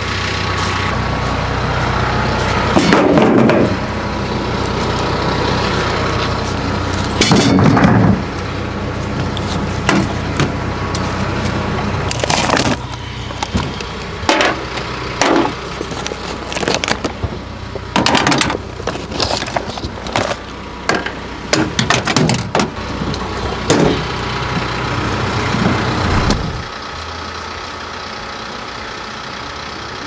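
An engine running with a steady low hum while many sharp metal clanks and knocks sound over it; about 26 seconds in the hum drops away to a lower, quieter running sound.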